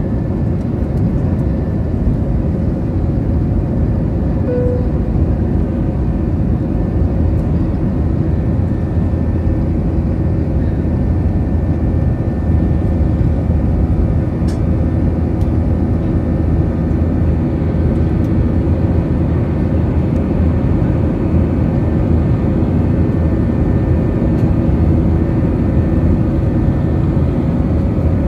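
Airbus A320 cabin during takeoff and initial climb: its twin IAE V2500 turbofan engines at climb thrust, heard through the cabin wall as a loud, steady noise with several steady humming tones over it.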